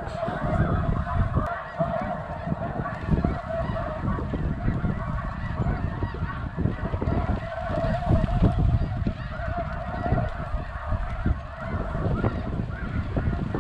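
A large flock of snow geese in flight calling, a dense chorus of overlapping honks with no break, over wind gusting on the microphone.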